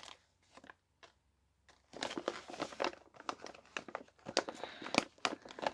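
Plastic sweet packet crinkling as it is handled and rummaged through, in irregular crackles that start about two seconds in, after a few faint clicks.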